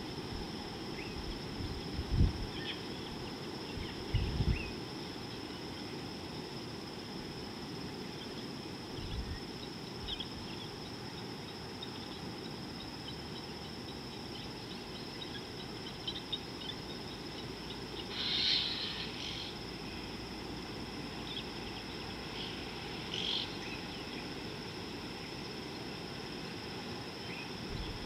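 Outdoor bush ambience: a steady high insect drone over a low rumbling haze, with scattered short bird chirps and a louder call about two-thirds of the way through. A few dull low thumps stand out, the loudest a couple of seconds and four seconds in.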